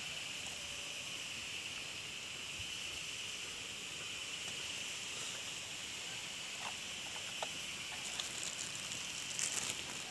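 Steady high-pitched insect chorus droning on one even band. In the last two seconds it is joined by crackling and crinkling as a plastic bag of grubs is handled.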